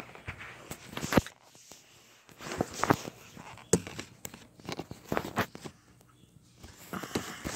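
Handling noise from a camera being moved about close to the microphone: a series of irregular knocks and clicks with brief rustling, the loudest knock about a second in.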